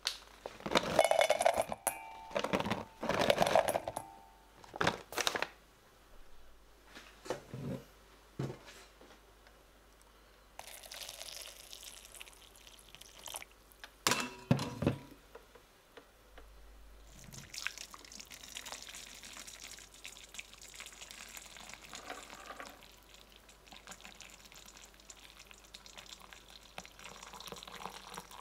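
Ingredients handled and dropped into a stainless steel mixing bowl, with knocks and ringing clinks against the metal, then hot water poured into the bowl from a kettle with a steady splashing hiss. Near the end, seeds tipped from a paper bag patter into a metal bowl.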